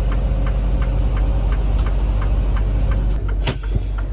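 Semi truck's diesel engine running steadily, heard from inside the cab, with a light ticking about four times a second. A short, sharp burst comes about three and a half seconds in.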